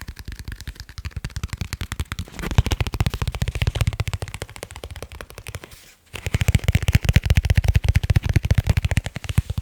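Fingers tapping fast on leather cases, a dense, even run of many taps a second. The tapping gets louder and heavier about two seconds in, stops for a moment a little after halfway, then carries on.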